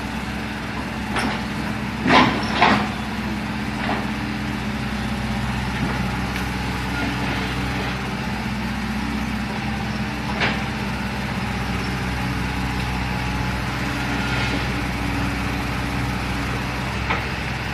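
Hitachi excavator's diesel engine running steadily, with a few sharp knocks from the machine at work, the loudest two close together about two seconds in and another about ten seconds in.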